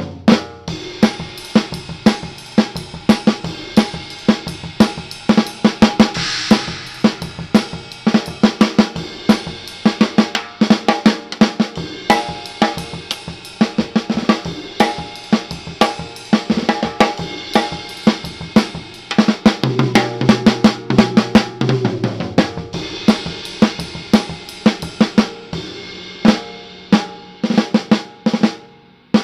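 Custom maple/carbon fiber hybrid 6½ x 14 inch snare drum with 20-strand snare wires and a single-ply Remo Ambassador batter head, played in a steady drum-kit groove with bass drum and cymbals. About twenty seconds in, a lower-pitched fill comes in for a couple of seconds before the groove resumes.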